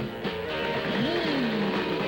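Cartoon soundtrack music with guitar. About a second in, one sliding tone rises and then falls.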